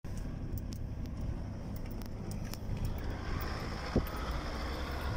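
A vehicle driving slowly over a rough dirt track: a steady low rumble from the engine and tyres, with scattered light ticks and rattles and a single knock about four seconds in.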